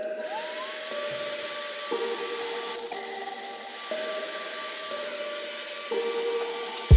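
A vacuum-driven fume extractor running, with a steady rushing hiss and a motor whine that rises as the motor spins up just after the start, then holds.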